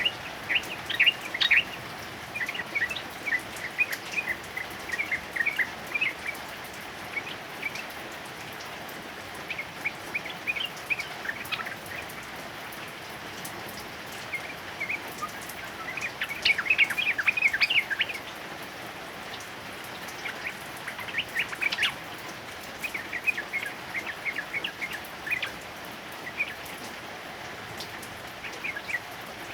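Yellow-vented bulbul singing in short bursts of rapid notes, repeated every few seconds, over a steady hiss of heavy rain. The loudest bursts come near the start, about halfway through and a little after.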